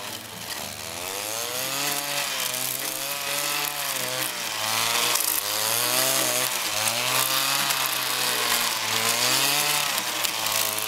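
Small petrol engine of a handheld debarking tool running under load, its spinning cutter disc rasping along a log. The engine's pitch rises and falls in slow swells as the disc bites and eases.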